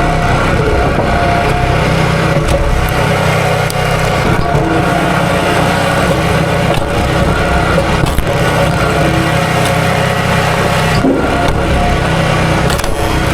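Small gasoline engine running steadily at a high, fairly constant speed.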